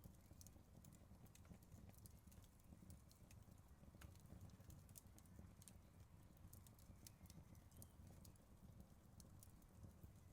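Faint crackling wood fire: scattered sharp snaps and pops over a low, steady rumble.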